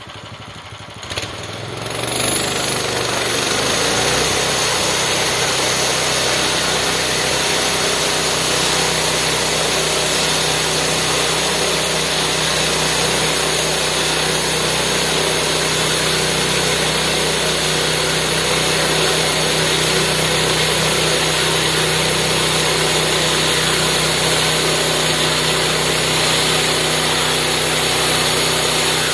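Small engine on a homemade bandsaw sawmill rising from idle to full speed about two seconds in, then running steadily while the band blade saws along a log.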